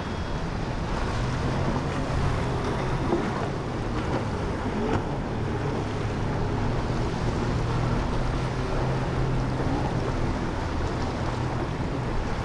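Motor yacht's engines running steadily at speed, a low hum under the rush of water from its bow wave and wake.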